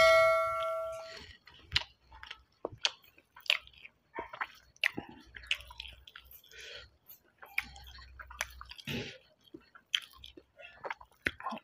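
A person chewing and smacking on a mouthful of rice, with short wet clicks and squishes as the hand mixes rice on a steel plate. At the very start a bell chime rings out and fades within about a second.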